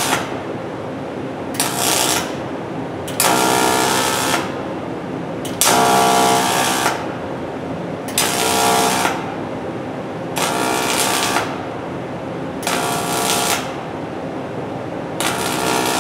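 Pulsed MIG (pulse-on-pulse) welding arc on thin aluminium, struck in short bursts of about a second each, roughly every two seconds, stitching a crack closed. A steady background hum fills the gaps between bursts.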